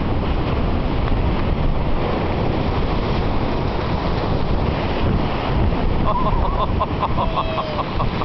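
Surf breaking and washing up onto a muddy beach, with heavy wind rumbling on the microphone. A faint series of short, high calls comes in near the end.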